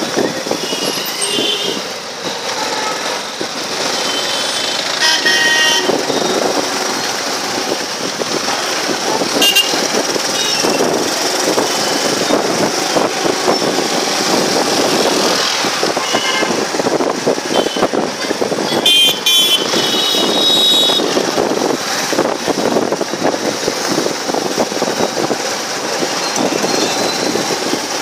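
Busy street traffic heard from a moving vehicle: motorcycle and scooter engines running with steady road noise, and vehicle horns tooting briefly several times, about five seconds in, near the ten-second mark, and twice more shortly after the middle.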